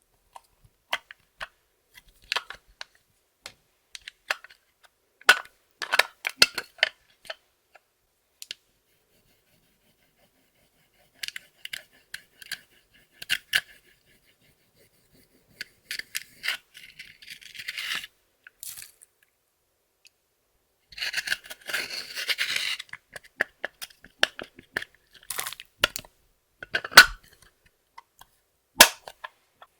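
Makeup products and their plastic cases being handled and crushed: scattered sharp clicks and crunches, with two longer stretches of scraping and crackling around the middle.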